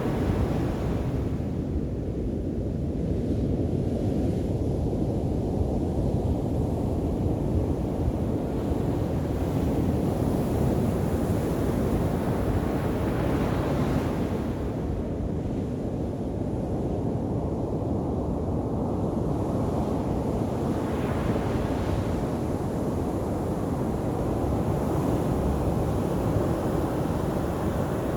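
Sea surf on a beach: a continuous low rush of breaking waves, with a wave breaking and washing in with a brighter hiss at the start, about 13 and 21 seconds in, and again near the end.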